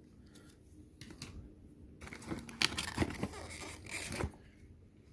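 Packaging being handled as a charging cable is unpacked: rustling and crinkling with a few sharp clicks, sparse at first and busiest from about two seconds in until just after four seconds.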